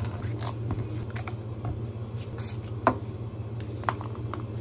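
Takeaway cups being handled as a plastic lid goes onto a paper cup and cardboard sleeves are slipped on: a few light clicks and taps, the sharpest about three seconds in, over a steady low hum.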